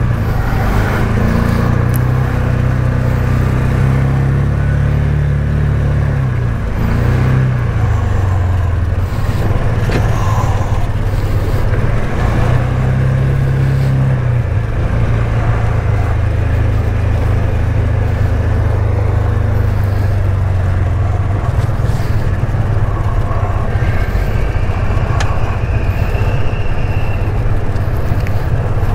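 Side-by-side UTV engine driving off along a trail. Its pitch rises and falls a few times with the throttle in the first fifteen seconds, then holds steadier, over constant rolling and wind noise.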